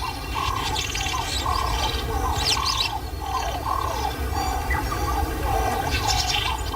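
Night-time bush ambience: an animal call repeated about twice a second, with higher chirping calls over a low rumbling background.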